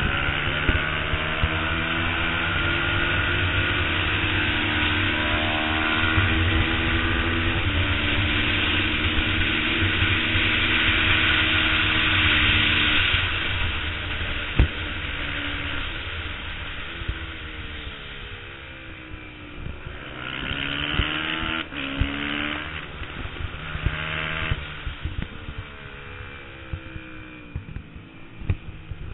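Onboard sound of a twin-cylinder race motorcycle under hard acceleration, the engine pitch climbing and stepping through upshifts for the first dozen seconds, with wind rush over the microphone. About 13 s in the throttle closes and the engine drops for a corner, then it revs up through more gears from about 20 s in.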